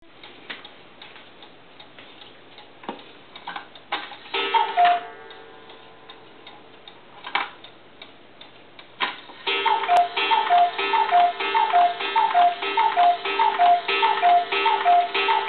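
Wood-chopper one-day cuckoo clock ticking, with a single two-note cuckoo call about four seconds in. From about nine and a half seconds it gives a long run of two-note cuckoo calls, roughly one every half second or so, over a steady droning tone.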